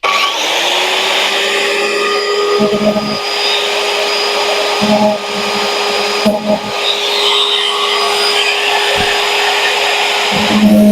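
Hand-held electric cutter (small grinder) starting up and running steadily, grinding through the side of a chainsaw chain link so the link can be knocked apart.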